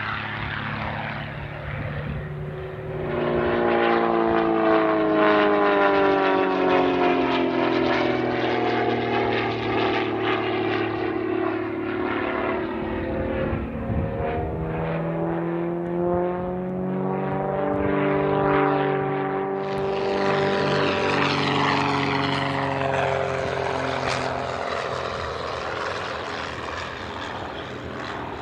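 Single-engine propeller aerobatic plane flying past, its engine note sinking in pitch and then rising again. Partway through the sound cuts abruptly to another pass.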